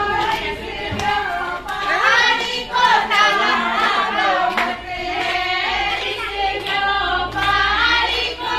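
A group of women singing together, several voices at once, with some hand-clapping.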